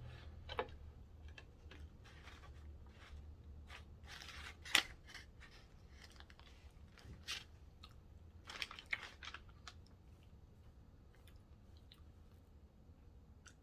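Close-up chewing and biting of a Subway meal: scattered crisp crunches and mouth clicks, the loudest about five seconds in, with more around seven and nine seconds.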